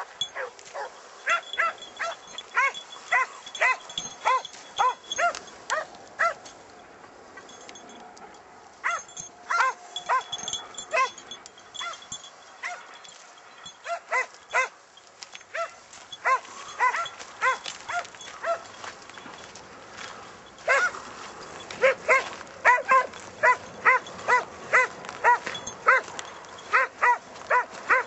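Hare-hunting scent hounds giving tongue: a run of short, evenly spaced barks, about two to three a second, coming in bouts with brief pauses between them.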